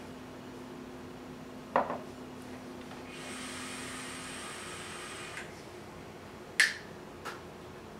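Two sharp clicks about five seconds apart as e-cigarette parts are handled, and between them a faint hiss as a drag is pulled on an e-cigarette.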